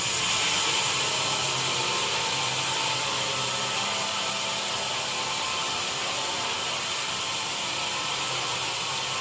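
Sawmill woodworking machinery running steadily: a continuous high, hissing whir.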